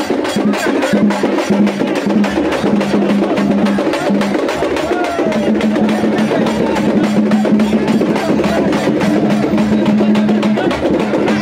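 Loud, rapid and even drumming with a steady low note held over it. The note breaks off and restarts in the first few seconds, then holds unbroken.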